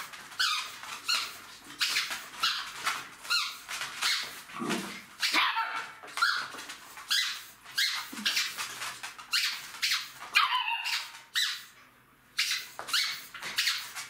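Three-month-old Jack Russell Terrier puppies giving excited play yips and barks, short high-pitched calls about two a second, with a brief lull about three-quarters of the way through.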